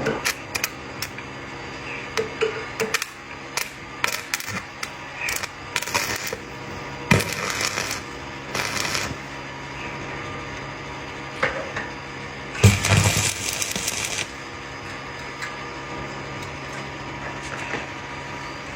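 Scattered clinks and knocks of metal parts and hand tools being handled during repair work, with a longer noisy scraping stretch of about a second and a half around the middle.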